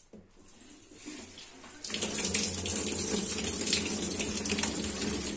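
Water from a wall tap running through a hose into a top-loading washing machine tub. It starts about two seconds in and then runs as a steady gush.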